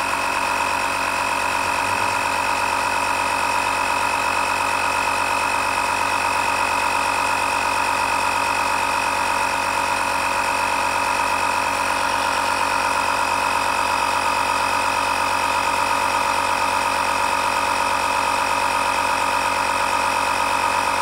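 Portable 12-volt DC tyre inflator (mini air compressor) running steadily with a constant whine as it pumps up a car tyre toward its preset 34 psi cut-off.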